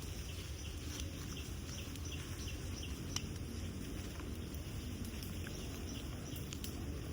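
Strong wind buffeting the microphone as a steady low rumble, with leaves rustling and faint clicks. A run of short, high chirps sounds during the first few seconds.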